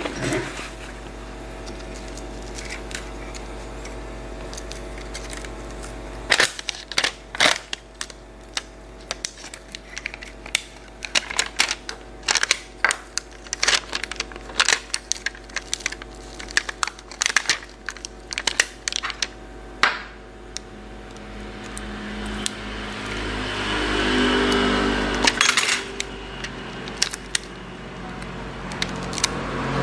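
Scattered small clicks and taps of laptop parts and a flexible cable being handled and fitted, over a steady low electrical hum; near the end a louder rushing noise swells up and falls away.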